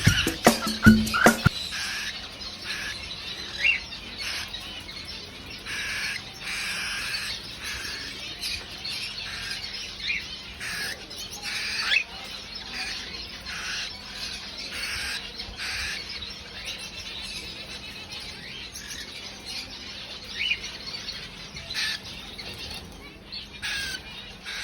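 Cockatiel calling: a long series of short, harsh chirps and squawks, some sweeping up in pitch.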